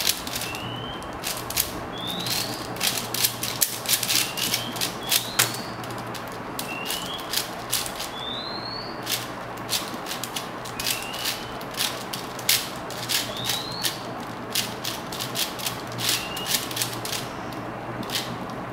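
Rapid plastic clicking and clacking of a 4x4 speed cube being turned by hand. A bird's short rising whistled call repeats every second or two behind it.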